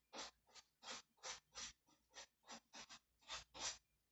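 A calico cat in labor licking herself: faint, rough rasping licks of the tongue, about two or three a second in an uneven rhythm.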